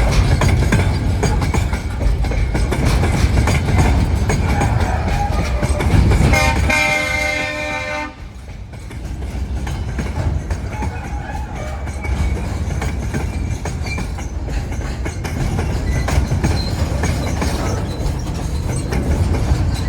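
DSG-class diesel-electric shunting locomotive running with a steady low rumble, sounding its horn once for about a second and a half, about six and a half seconds in.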